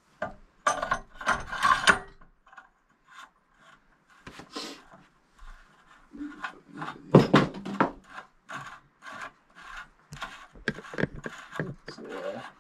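Parts of a car suspension strut assembly being handled on a workbench: irregular knocks, clinks and scrapes of metal on metal and wood, the loudest knock about seven seconds in.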